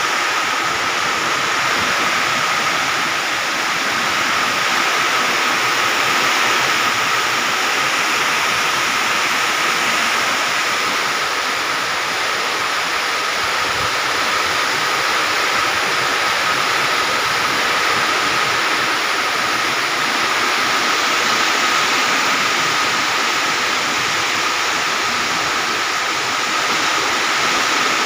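Heavy rain pouring steadily, driven by strong wind.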